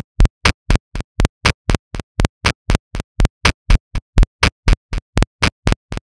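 Electronic music intro: a single short percussive hit with a strong bass thump repeats about four times a second in a steady, stuttering pulse, with dead silence between the hits.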